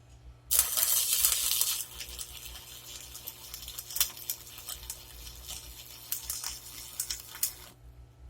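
Homemade microwave-oven-transformer arc welder welding: the arc strikes about half a second in with a loud hiss, then crackles and pops unevenly, and breaks off abruptly near the end.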